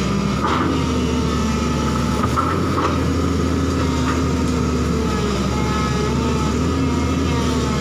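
JCB crawler excavator's diesel engine running steadily under load, with a high hydraulic whine that wavers slightly as the arm works, and a few faint brief cracks of brush giving way.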